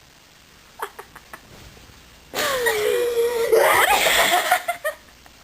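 Loud laughter lasting about two and a half seconds, starting a little before the middle, with its pitch sliding down and up. It follows a couple of seconds of near-quiet with a few short faint sounds.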